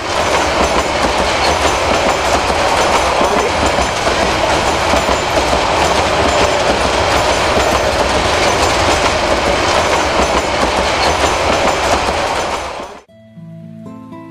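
Passenger train running past at close range: a loud, steady rumble and clatter of wheels on the track. It cuts off suddenly about thirteen seconds in, and gentle guitar music takes over.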